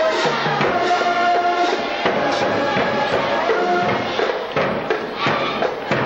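Band music playing held notes over a percussion beat.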